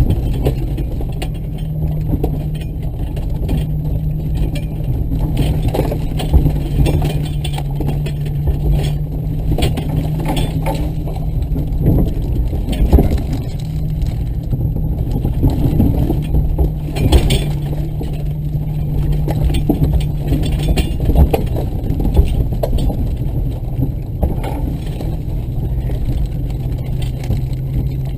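Off-road vehicle's engine running steadily at low speed while it crawls over rough ground, with frequent irregular knocks, clunks and rattles as the suspension bottoms out.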